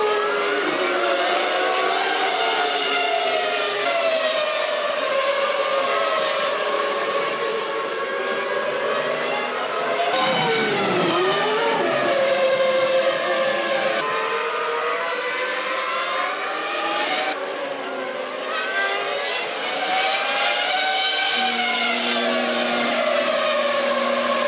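1998 Formula One cars' V10 engines at racing speed, the pitch repeatedly climbing and dropping as they rev through the gears. About ten seconds in, a car sweeps past with a falling-then-rising pitch, and the sound jumps abruptly several times between shots.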